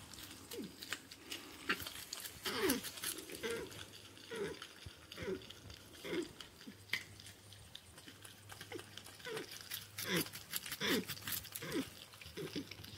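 Porcupine making a dozen or so short whining calls, each falling in pitch, about one a second, while it eats. Crunching and chewing clicks from the porcupines eating sweet potato and seeds run between the calls.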